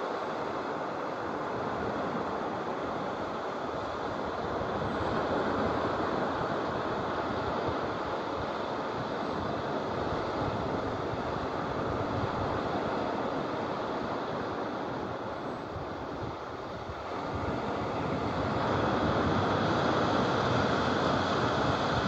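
Small waves breaking and washing up a sand beach: a continuous rush of surf that swells and eases, dropping briefly about two-thirds of the way through and building again near the end.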